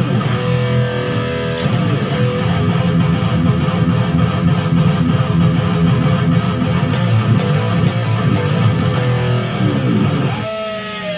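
Electric guitar played loud and dense, free of the crackle of a dirty volume pot just cleaned with contact cleaner. Near the end a ringing chord bends down in pitch.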